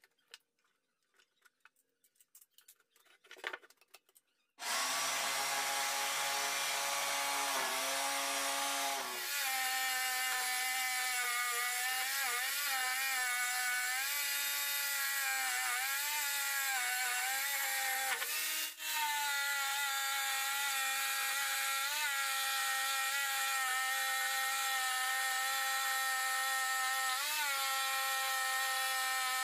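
Small clicks of a jigsaw blade being fitted, then about four and a half seconds in a table-mounted jigsaw starts and runs, cutting a thick block of wood. Its motor whine holds steady, dipping briefly in pitch several times as the blade bears into the wood.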